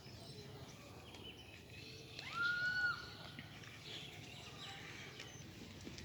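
A single animal call about two seconds in, rising in pitch and then held for under a second, with faint bird chirps around it over low outdoor background noise.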